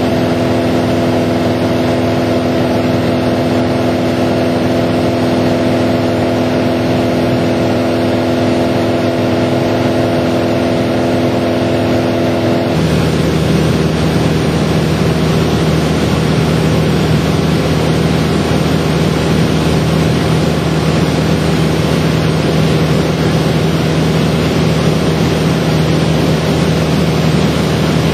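Airliner cabin noise in flight: a steady roar of engines and airflow with a hum of several steady tones, which change abruptly about halfway through to a single lower tone.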